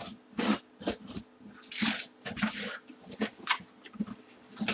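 A cardboard shipping box being handled and opened: about a dozen short scraping and rustling sounds of cardboard flaps and sides rubbing, over a faint steady hum.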